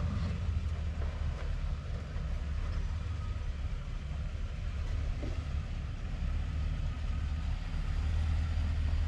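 Ford F-250 Super Duty pickup's engine running at low revs as the truck creeps forward over rock, a steady low rumble.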